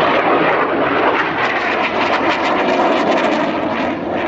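Canadair NF-5 (Northrop F-5) fighter's twin jet engines heard in flight: loud, steady jet noise.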